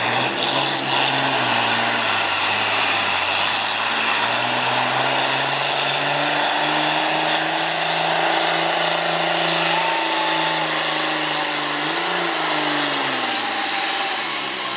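Diesel engine of a John Deere farm tractor under full load pulling a weight-transfer sled, running hard with heavy exhaust. Its pitch climbs over the first few seconds, holds steady, then drops away near the end as the pull winds down.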